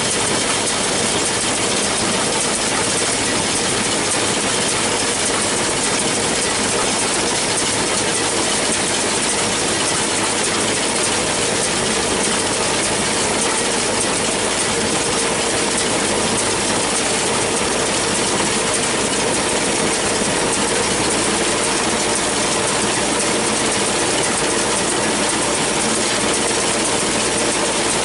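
John Deere 6400 tractor's diesel engine running steadily with a New Holland 648 round baler working behind it, a continuous machine din with mechanical rattling.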